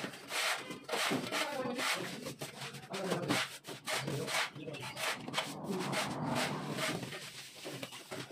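Hand float rubbed in repeated scraping strokes across fresh cement-and-sand plaster on a ceiling, floating the coat smooth.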